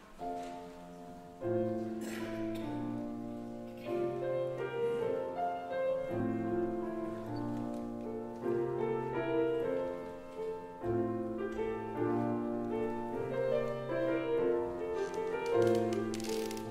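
Mixed choir singing with piano accompaniment, in slow, held chords that change every second or two.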